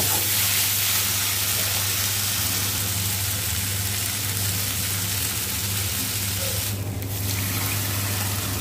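Chopped tomatoes and masala sizzling in a non-stick frying pan, stirred with a wooden spatula at first, over a steady low hum. About seven seconds in, water is poured into the pan.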